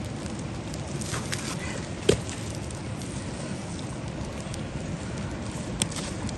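Wood fire crackling steadily, with a sharp pop about two seconds in and a smaller one near the end.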